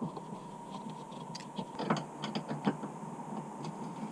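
Scattered light clicks and scrapes of a Torx key working small screws and plastic trim under a car's rear, with a short cluster of them about two seconds in.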